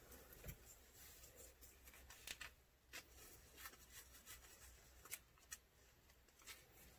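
Near silence with a few faint, sharp clicks and light scrapes from small clear plastic craft cups being handled while resin and glitter are readied for mixing.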